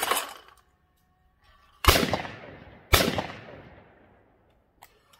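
A whirly-bird clay thrower flings a clay target, then a Tristar Trinity 16-gauge over-and-under shotgun fires twice, about a second apart, roughly two and three seconds in. Each shot trails off over about a second.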